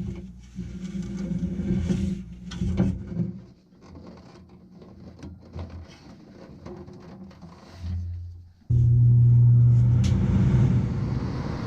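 Handling clatter on a furnace cabinet, then about nine seconds in a Bryant gas furnace's motor switches on suddenly and runs with a loud, steady, low hum as the unit restarts.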